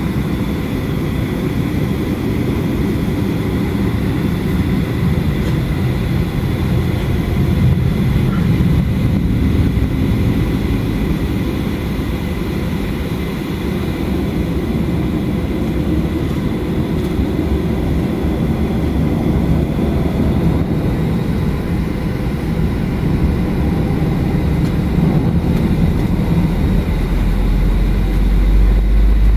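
Cabin noise of a Boeing 737-800 taxiing: a steady low rumble from the rolling airliner and its idling CFM56 jet engines, with a faint steady high whine. The low rumble grows deeper and louder near the end.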